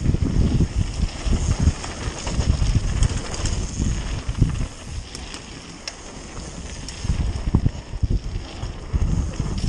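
Wind buffeting the microphone of a mountain bike rider descending at speed, over the sound of tyres rolling on a gravel trail and scattered clicks and rattles from the bike over bumps. The wind eases for a couple of seconds around the middle.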